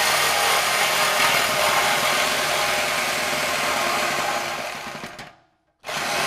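Cordless reciprocating saw cutting through the truck's metal exhaust pipe just behind the muffler, running loud and steady. Near the end it stops abruptly for about half a second, then starts cutting again.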